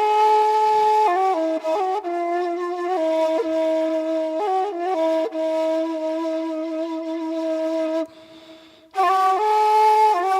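Music: a solo woodwind playing slow, long-held notes, with a short break about eight seconds in.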